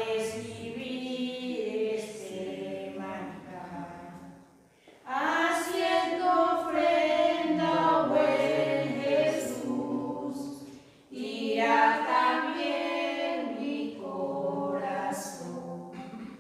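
A group of voices singing a hymn, largely unaccompanied, in three long phrases with short breaks about five and eleven seconds in: the offertory hymn of a Catholic Mass.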